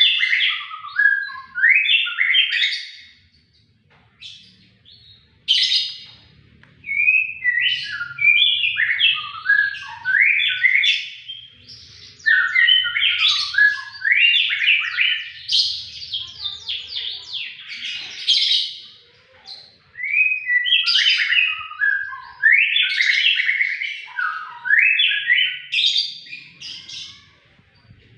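White-rumped shama singing in long runs of quick, varied, sharp notes, with a brief pause about four seconds in and another near the end.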